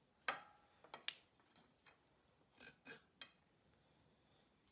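Kitchen utensil scraping the gel off a cut aloe vera leaf: a handful of short, faint scrapes and clicks over the first three seconds or so.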